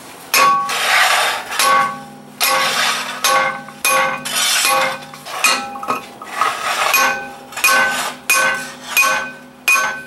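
Repeated metal-on-metal hammer blows on a car's rear wheel hub, about one to two a second, each with a brief ringing clang: the hub is being driven loose for removal and does not yet come free.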